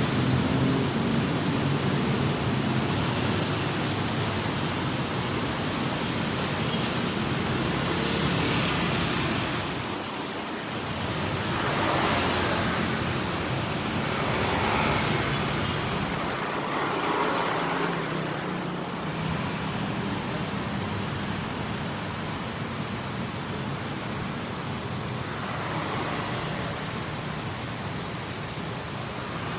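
Busy city street traffic: a steady wash of motorcycle and car engines and tyre noise. It swells several times as vehicles pass close by.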